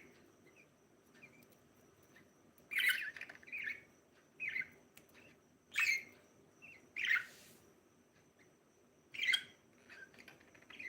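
Budgerigar chirping in short, separate calls, with louder chirps about three, six and nine seconds in and a harsher, noisier squawk near seven seconds.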